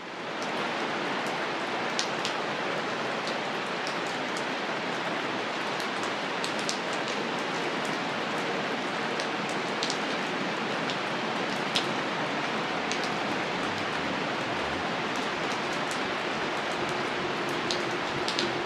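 Steady rain falling: a dense, even hiss with scattered sharp ticks of individual drops.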